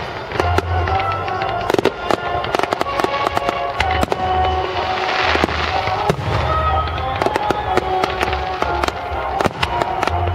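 Fireworks display: a dense, continuous run of bangs and crackles from bursting shells, many in quick succession, with music playing underneath.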